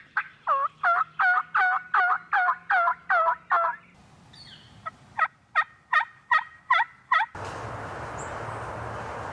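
A hand-worked turkey call making hen yelps: a run of about eleven yelps over the first three and a half seconds, then after a short pause a run of about seven higher yelps that ends about seven seconds in. A steady hiss follows.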